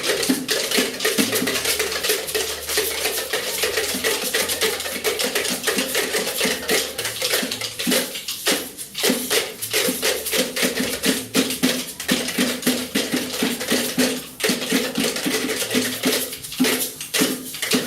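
Dense, continuous clatter of many small hand percussion instruments shaken and struck at once by a children's group, rapid overlapping clicks and knocks, with faint music underneath.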